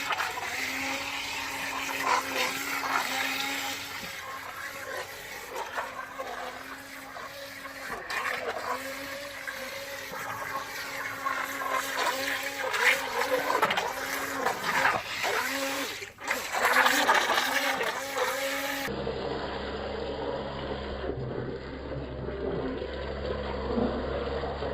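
Small electric motor of a mini RC speed boat (Gizmo Vine T04) whining as it runs, its pitch wavering up and down with the throttle, over the churn and splash of water. Near the end the sound turns duller and steadier.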